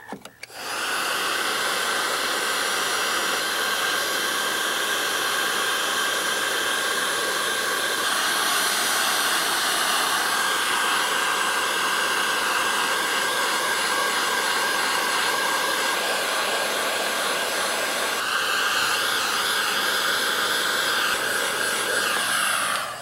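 Electric heat gun running steadily, its fan blowing hot air to shrink marine heat-shrink crimp connectors on the wiring. It switches on just after the start and cuts off near the end.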